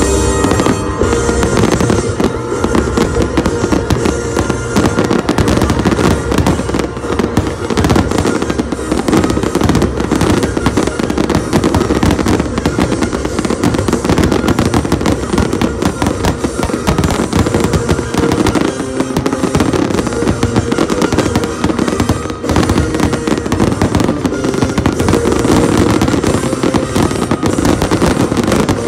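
Fireworks display in a dense, unbroken barrage: many bursts and crackles overlapping, with no pause between them, and music playing underneath.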